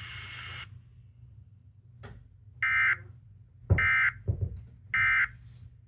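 Three short bursts of EAS end-of-message (SAME) data tones, about a second apart, from a radio's speaker, closing the tornado warning alert. A steady low rumble and a couple of low thumps lie underneath.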